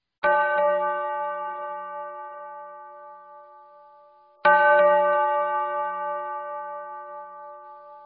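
A bell-like chime struck twice, about four seconds apart. Each strike rings out with several overtones and slowly fades. It is the opening of a music track.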